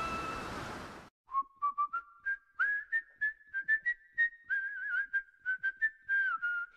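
Background music: a choral song fades out, then a whistled melody begins over short percussive clicks, the intro of the next song.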